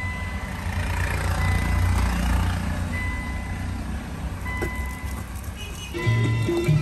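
An electronic beep repeats about every one and a half seconds over a steady low rumble. About six seconds in there is a short, louder burst of low sound as the car stereo is switched to FM radio.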